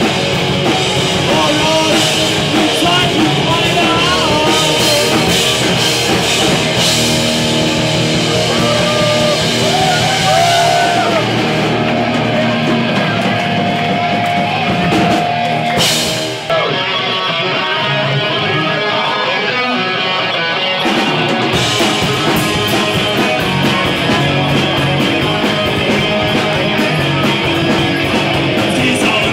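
Rock band playing live: electric guitars and drum kit with a singer on the microphone. Roughly a third of the way in the cymbals drop out for several seconds, leaving long held guitar notes, and the full band comes back in about two thirds of the way through.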